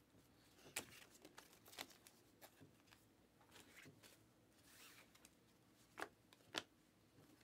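Faint clicks and slides of glossy trading cards being flipped through a stack by hand, with two sharper flicks about six seconds in.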